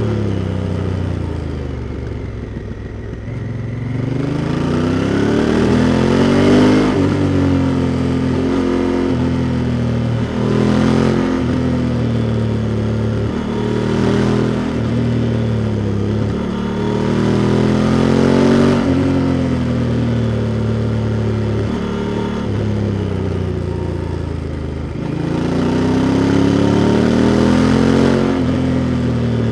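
Honda Africa Twin's parallel-twin engine pulling under way, heard close up. Its pitch climbs and drops back several times as the rider accelerates, changes gear and eases off.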